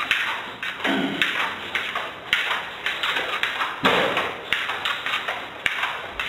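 Repeated taps and thumps, a few a second, heard over a telephone line.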